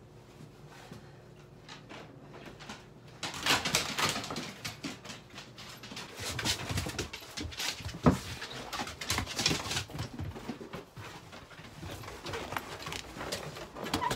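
Handling noise as a handheld camera is picked up and carried: rustling and clattering start about three seconds in, with one sharp knock about eight seconds in. Sounds from two pet huskies are mixed in.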